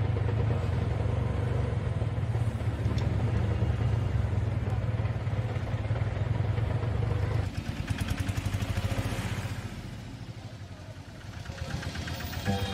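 Auto-rickshaw engine running with a steady low drone; about seven and a half seconds in it turns to a choppier rattle that fades.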